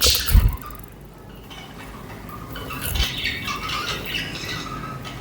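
Budgerigars chirping and chattering, with a loud squawk right at the start. There are two low thumps, one just after the squawk and one about three seconds in.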